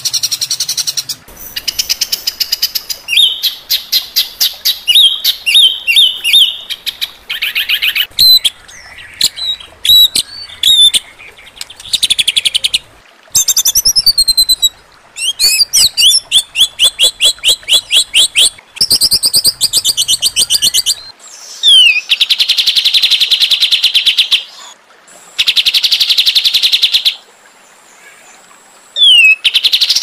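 Harsh songbird calls of the 'tembakan kasar' kind used as masteran for training cage birds. Fast trills, quick runs of repeated chattering notes and sharp rising and falling whistles come in phrases of one to a few seconds, broken by sudden short gaps.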